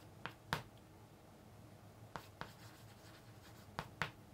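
Chalk writing on a chalkboard: faint short taps and scratches of the chalk, coming in three quick pairs.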